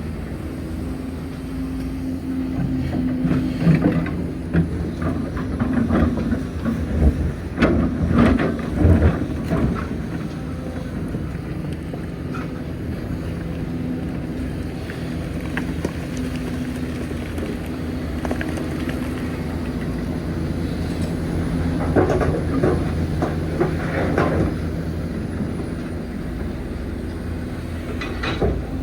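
Hitachi Zaxis 490LCH excavator's diesel engine running steadily, with two stretches of clanking knocks and scraping, a few seconds in and again past the middle, as the bucket works the load.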